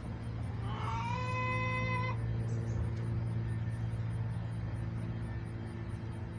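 A chicken gives a single drawn-out call lasting about a second and a half, starting under a second in, rising at its onset and then held on one pitch. A steady low hum runs underneath throughout.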